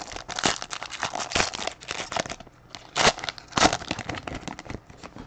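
Foil wrapper of a trading card pack crinkling as it is torn open and handled, in a run of rustling bursts for the first couple of seconds, then a few shorter crinkles and flicks.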